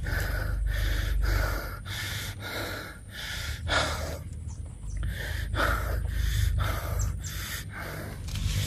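A man breathing hard, with quick audible breaths about two or three a second, over a low rumble.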